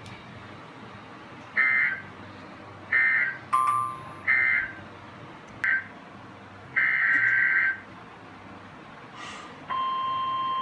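NOAA Weather Radio Emergency Alert System data bursts: three short buzzy digital bursts about a second apart mark the end of the warning message, and a longer burst follows a couple of seconds later. Near the end the steady 1050 Hz weather-radio warning alarm tone starts up, announcing the next warning.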